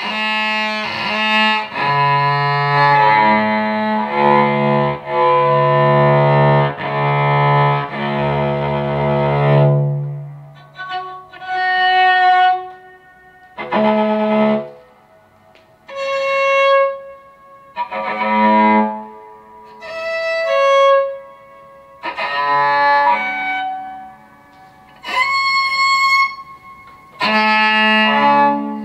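Electric cello bowed solo. For about the first ten seconds it plays sustained low notes, one running into the next. After that come short, separate bowed notes roughly every two seconds, with pauses between them.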